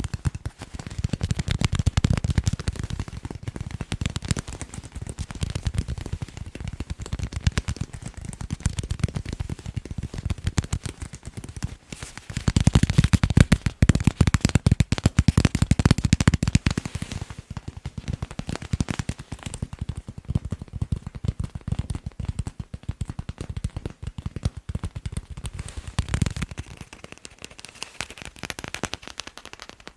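Fast, dense tapping on sports balls: a rapid stream of clicks with a low thud under them, louder for a few seconds from about twelve seconds in, and thinner with less low end near the end.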